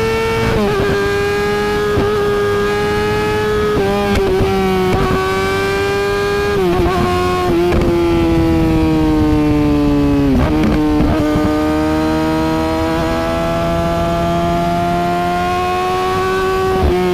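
Kawasaki Ninja ZX-10R inline-four engine running at high, fairly steady revs. The pitch sinks slowly, then climbs again, and is broken by a brief interruption about four times.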